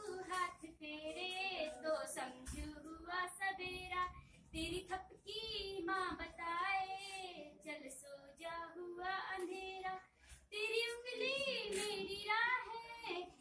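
A high voice singing a melody with wavering held notes, in phrases with short breaks between them.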